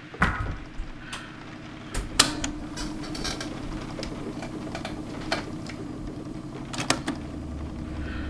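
A run of sharp knocks and clicks at irregular intervals, about eight in all, over a steady low hum.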